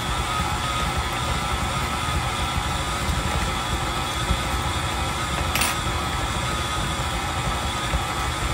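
Electric stand mixer running steadily, its motor whining as the flat beater churns a thick chicken and cream cheese filling in a steel bowl. There is one brief tick about five and a half seconds in.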